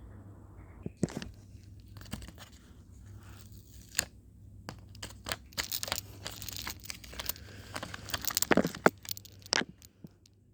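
A blind-bag wrapper being torn open and crinkled by hand: scattered rustles and clicks, then a dense stretch of tearing and crinkling in the second half.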